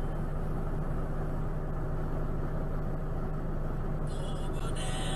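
Steady low hum of a car engine idling while stopped, picked up by the dashcam. About four seconds in, a brighter, higher sound joins it.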